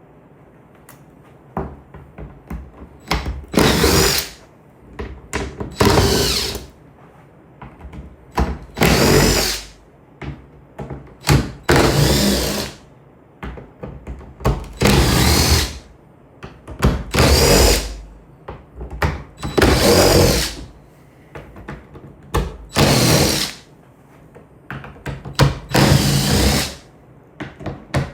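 Impact gun backing out T30 Torx screws in short bursts of about a second each, roughly every two to three seconds, with small clicks of handling between bursts.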